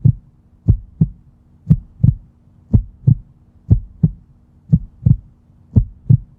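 Heartbeat sound effect: pairs of low thumps, lub-dub, about one pair a second, over a faint steady hum.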